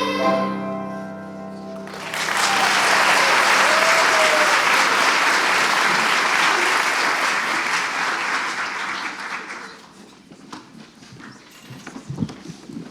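The last sung note of a children's choir and its accompaniment dies away. About two seconds in, the audience starts applauding and keeps it up for roughly eight seconds before the clapping fades out.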